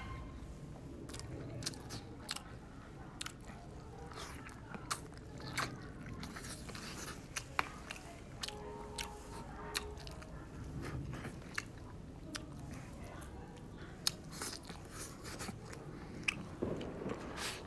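Close-up chewing and biting of a mouthful of rice and braised meat, with many short sharp clicks scattered throughout.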